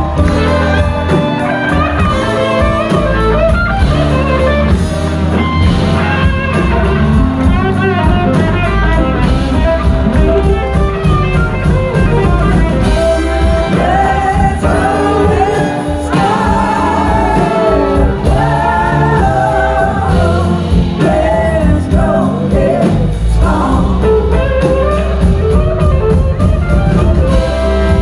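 Live blues-rock band playing: electric guitar, drums and bass, with a woman singing lead. Her vocal comes in about halfway through. It is heard from among the audience.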